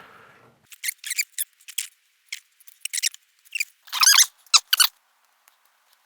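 Pre-perforated packing foam squeaking as it is handled and rubbed, a string of about a dozen short, high squeaks, the loudest a little after four seconds in.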